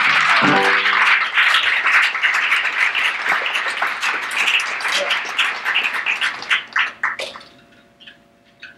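Small audience applauding, loud at first, then thinning out over about seven seconds to a few last claps.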